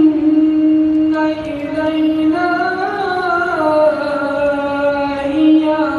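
A man's melodic Quran recitation leading the congregational prayer, drawn out in long held notes whose pitch slowly rises near the middle and falls back.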